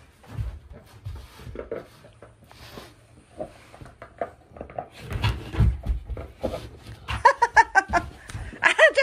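Bernese Mountain Dog puppy playing with a rubber ball on a carpeted floor: soft knocks, thuds and scuffling as it noses and pushes the ball, heaviest a little past halfway. Near the end comes a quick run of short pitched sounds, then one more.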